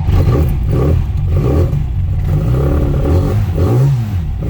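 Classic Mini's 1380cc A-series four-cylinder engine running and being revved repeatedly, its pitch rising and falling. It runs cleanly on all four cylinders, the misfire from a wet, non-firing number 4 spark plug cured by cleaning the plugs.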